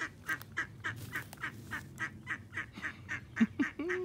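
A duck quacking in a long, even series of about three to four quacks a second, with a louder, lower sound near the end.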